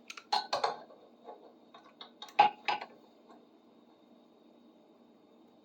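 Metal tools and parts clinking and knocking together, about a dozen short sharp clinks in the first three seconds with the loudest pair about two and a half seconds in, while a gear puller's bolt threads are being worked with a wrench.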